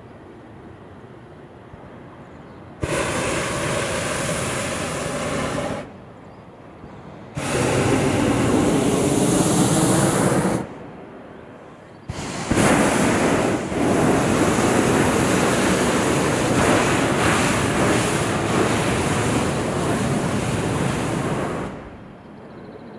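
Hot-air balloon propane burner firing in four blasts, each a steady rushing noise that starts and stops abruptly; the last blast runs about eight seconds.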